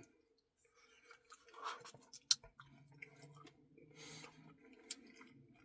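Faint close-up eating sounds: quiet chewing with scattered soft mouth clicks and one sharper click a couple of seconds in.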